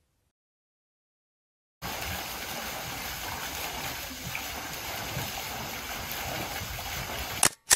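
Water pouring from a bamboo flume onto a turning wooden waterwheel and splashing into the pool below, a steady rushing that starts about two seconds in. It stops with two sharp camera-shutter clicks near the end.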